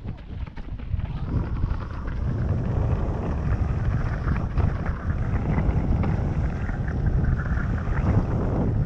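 Wind buffeting the camera microphone along with tyres rolling over a dirt trail as a mountain bike is ridden at speed. The noise is loud, strongest in the bass, and grows louder about a second in.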